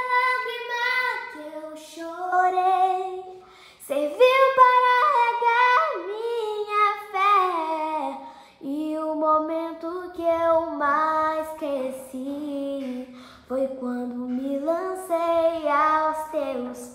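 A girl singing a Portuguese Christian worship song unaccompanied, in held notes that slide between pitches, phrase by phrase with short breaks between them.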